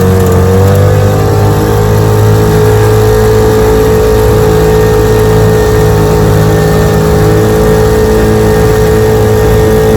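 1947 Johnson HD-25 2.5-horsepower two-stroke outboard motor running at a steady speed under way, pushing a small john boat.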